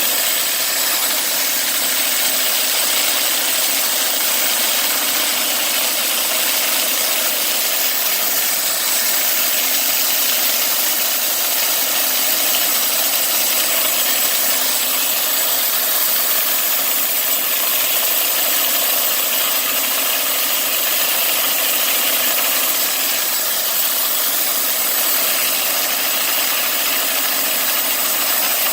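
Homemade bandsaw mill running steadily, with an even mechanical sound of many steady tones over a high hiss.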